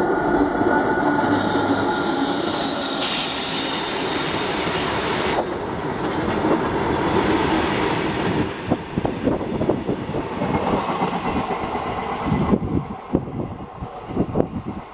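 Long freight train of covered wagons, hauled by an electric locomotive, passing close at speed: a loud steady rumble of wheels on rail with thin high tones above it. After about eight seconds it turns into uneven clacks of wheels over rail joints, fading as the last wagons and the brake van go by.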